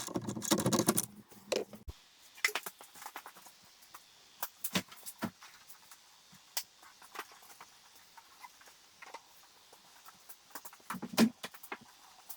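Scattered light clicks and knocks from handling the Jeep Wrangler JK's hard-top Freedom panels as they are lifted off, with a louder clunk about eleven seconds in.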